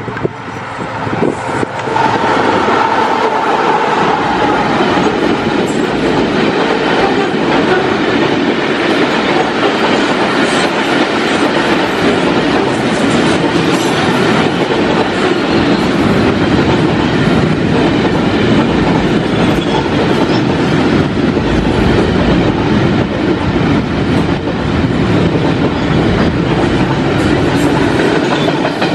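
Diesel-hauled container freight train passing close by. It swells over the first two seconds as the locomotive arrives, then settles into a steady loud rumble and clickety-clack of wagon wheels rolling over the rail joints.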